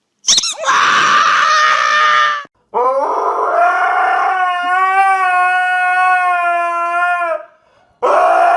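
A dog howling: a first howl of about two seconds, then a long howl held at a steady pitch for several seconds, and a third howl starting near the end.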